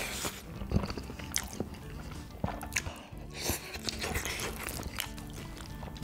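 Close-miked mukbang eating: a man chewing and slurping black-bean-sauce (jjajang) noodles with wet mouth clicks, over background music. There is a slurp right at the start and another a little past three seconds in.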